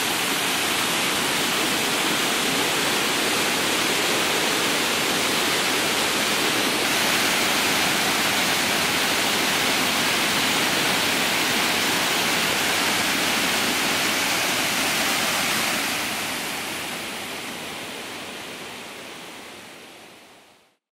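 Steady roar of water pouring down a travertine waterfall into the pool below it, fading out over the last few seconds.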